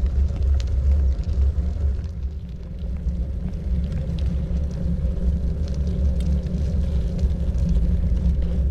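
Steady low rumble of wind buffeting the microphone while riding, with faint clicks and rattles over it; it eases slightly a couple of seconds in.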